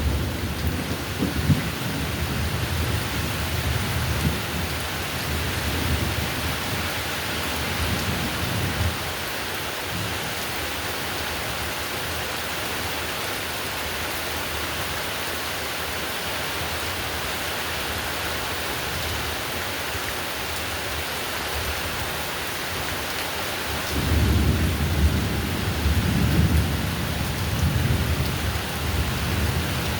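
Heavy rain falling steadily, with rolling thunder rumbling in the first several seconds, fading out about nine seconds in and returning about three-quarters of the way through.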